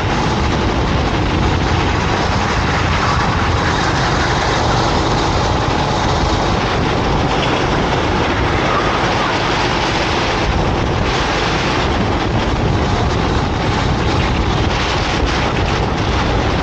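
Racing kart engine running flat out under race load, mixed with steady wind noise on the microphone.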